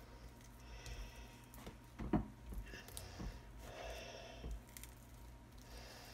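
Faint, soft handling sounds of fingers spreading a creamy chicken-and-cheese filling over a flour tortilla on a plate, with a light tap about two seconds in, over a low steady hum.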